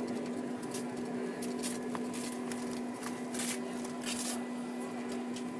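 Airliner cabin noise while taxiing: a steady hum with a low drone, broken by several brief rustling noises, four or so in the middle of the stretch.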